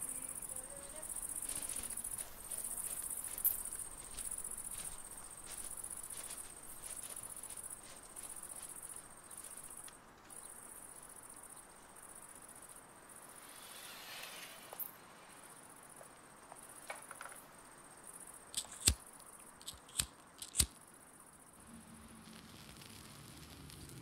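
Insects chirping in a steady, high, pulsing drone that fades after about ten seconds. Several sharp clicks come about three-quarters of the way through.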